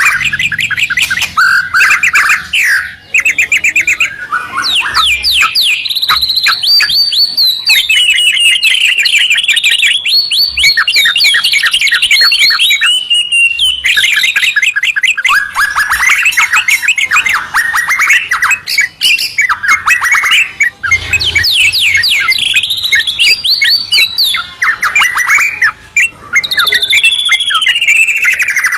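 White-rumped shama and yellow-vented bulbul singing loudly together, a non-stop stream of rapid repeated trills and sweeping whistles with only brief pauses.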